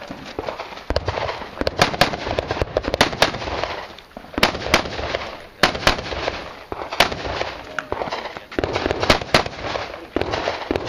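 Gunshots in irregular quick pairs and short strings, a dozen or more sharp cracks with short pauses between groups as the shooter moves through a course of fire.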